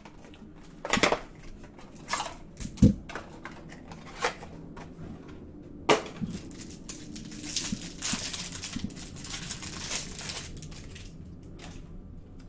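A cardboard hanger box of basketball trading cards being handled and opened, with its stack of cards pulled out and handled: a series of sharp clicks and taps, the loudest a dull thump about three seconds in, then crinkly rustling from about eight to ten seconds in.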